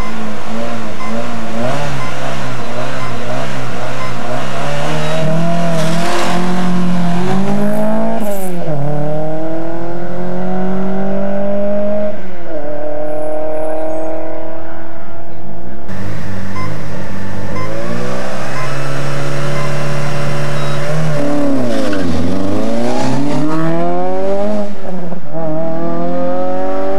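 Rally car engine held at high revs, then accelerating hard with rising revs broken by quick gear changes. Later a second rally car's engine is heard, its revs dipping and climbing again through several gear changes.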